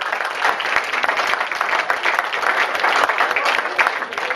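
Audience applauding: many people clapping at once in a dense, steady stream of claps.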